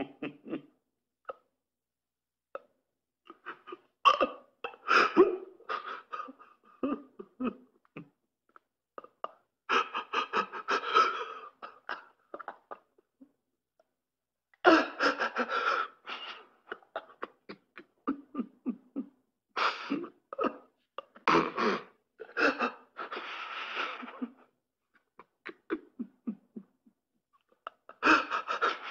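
A string of recorded laughter sound effects played one after another: bursts of rapid 'ha-ha' pulses a few seconds long, with dead-silent gaps between the clips.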